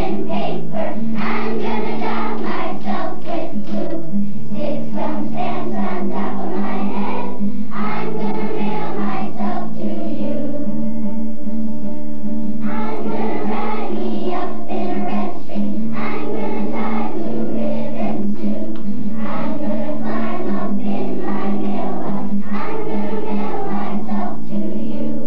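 A children's choir singing a song in unison over sustained instrumental accompaniment. The voices stop for a couple of seconds about ten seconds in while the accompaniment holds, then the choir comes back in.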